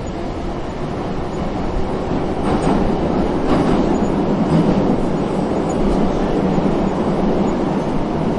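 Metro train heard from inside the car, running with a steady heavy rumble of wheels and motors that grows louder over the first three seconds. A couple of clacks come about two and a half and three and a half seconds in.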